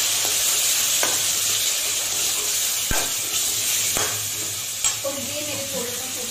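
Onion-tomato masala sizzling in hot oil in a steel kadai while it is stirred with a steel ladle, the ladle knocking against the pan a few times. The tomato paste has just gone in and is frying.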